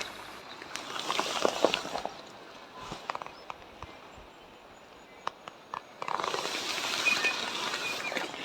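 Quiet bush ambience: uneven rustling and a few scattered clicks, with faint high bird calls. The rustling thickens during the last couple of seconds.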